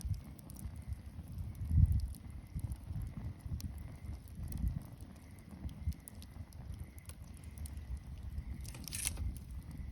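Wood bonfire crackling: scattered small pops and snaps over an uneven low rumble, with a louder low thump about two seconds in and a sharper, hissing crackle near the end.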